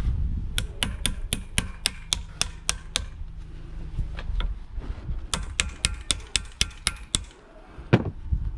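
Brass hammer tapping a new U-joint bearing cap into a Toyota driveshaft yoke, metal on metal. There are two quick runs of light, evenly spaced strikes, about four a second, then a single heavier thump near the end.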